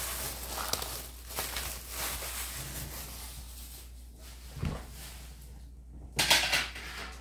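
Rustling and light knocks of shopping-haul items being handled and set down, with a louder rustle about six seconds in.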